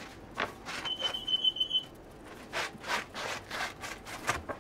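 Crusty loaves and a wooden bread peel scraping and knocking against a metal wire rack as the bread is slid off and set on the shelf. A high beeping tone lasts about a second, just after the start.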